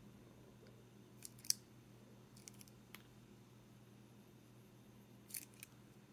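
A few small sharp clicks and ticks of plastic fountain pens being handled and turned in the fingers, the loudest about one and a half seconds in, over a quiet room.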